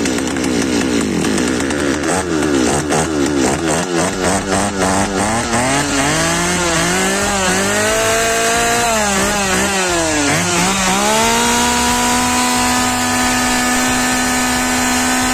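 Stihl 023 chainsaw's two-stroke engine running on its first test after a carburetor rebuild. It is blipped and revved up and down repeatedly, dips sharply about ten seconds in, then settles to a steady idle.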